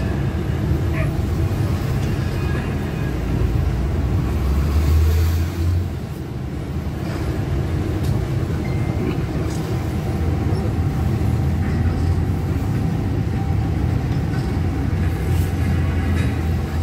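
Bus engine and road noise heard from inside the cabin while the bus drives, a steady low drone that swells briefly about four to five seconds in.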